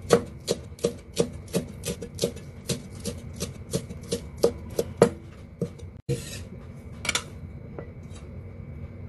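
Chinese cleaver chopping spring onions finely on a wooden chopping board, quick even strikes about four a second, stopping about six seconds in. Then a short scrape of the blade across the board and a single knock.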